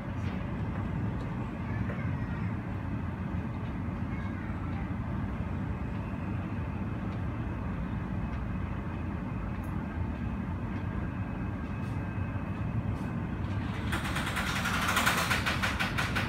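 Steady low rumble of airport apron noise: aircraft engines and ground vehicles. About two seconds before the end, a louder, harsh rattling sound comes in with fast even pulses and carries on to the end.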